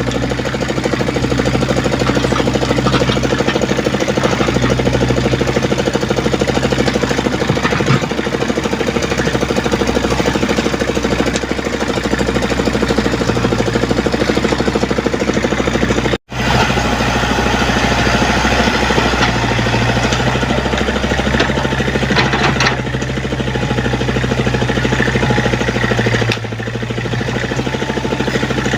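Komatsu PC75UU mini excavator's diesel engine running steadily with a rattling mechanical clatter; the sound cuts out briefly about halfway through.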